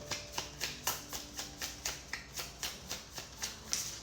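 A deck of tarot cards being shuffled by hand: a quick, even run of card slaps, about four or five a second.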